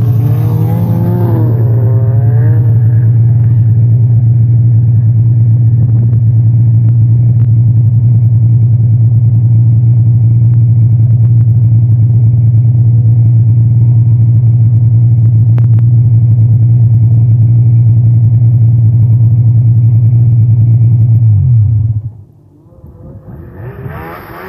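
Snowmobile engine running close by at a steady speed, then shut off about 22 seconds in, its pitch dropping briefly as it stops.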